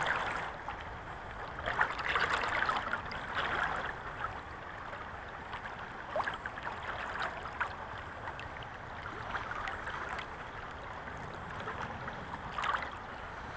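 Shallow stream running over rocks, a steady burbling water noise, a little stronger in the first few seconds, with a few small clicks scattered through it.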